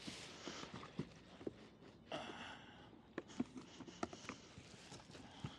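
Scattered light knocks and taps in a kayak as a just-landed small red drum and its hook are handled, with a brief rushing, splashy noise about two seconds in.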